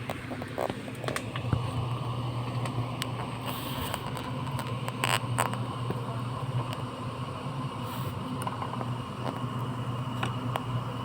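Scattered light clicks and taps of printer parts being handled during disassembly, with a brief louder crackle about five seconds in, over a steady low hum.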